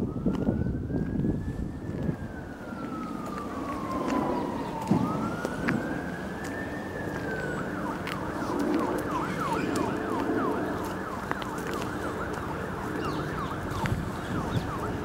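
An emergency-vehicle siren: a slow wail rising and falling twice, then switching about halfway through to a fast yelp warbling up and down to the end.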